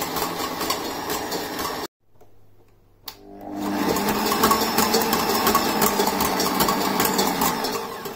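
Kenwood Prospero kitchen machine running, its motor turning the dough hook in an empty stainless steel bowl now that the head is locked down. The running stops abruptly about two seconds in, then starts up again a second later, builds up and runs steadily until it fades near the end.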